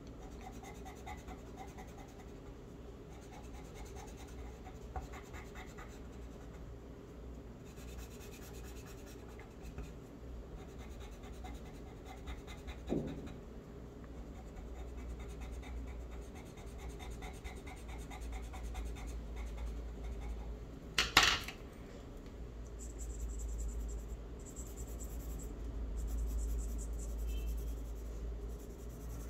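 Pencil scratching on drawing paper in short, uneven strokes as letter outlines are drawn, with a sharp click about two-thirds of the way through.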